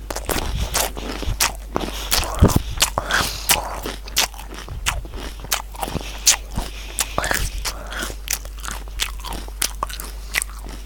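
Close-miked crunchy raw vegetables being bitten and chewed, with many sharp, irregular crunches several times a second.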